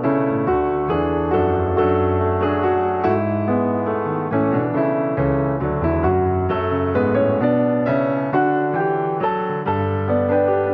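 Background piano music: a slow, gentle melody over sustained low notes, with fresh notes struck about every half second.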